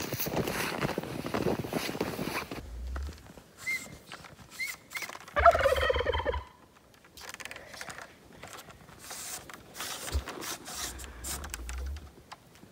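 Boots crunching through deep snow for the first couple of seconds. About five and a half seconds in, a turkey gobbles once, the loudest sound, with a couple of short chirps just before it. Later a push broom brushes snow off the solar panels, softly.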